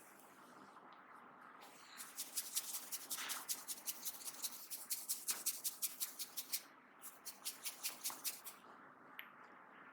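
Hands working quickly through hair and over the scalp in a head massage, making a rapid run of crisp crackling strokes, about seven a second. The strokes start about two seconds in and break off briefly about two-thirds of the way through before starting again.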